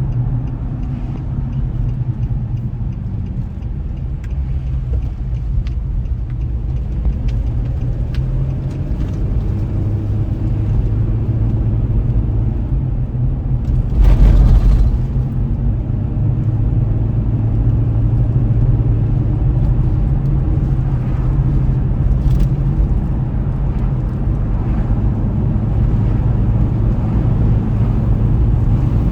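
Car driving on a road: steady engine and tyre noise with a low hum. About halfway through there is one loud thump with a rush of noise lasting about a second.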